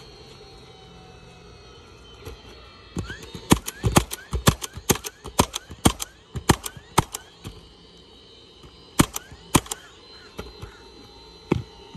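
Roofing nailer driving nails through asphalt shingles. It fires a quick run of about a dozen sharp shots, then two more and a single last shot near the end.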